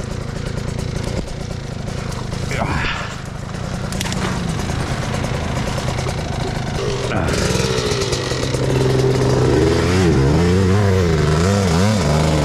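Two-stroke dirt bike engines running at idle. From about eight seconds in an engine grows louder, its pitch wavering up and down unevenly.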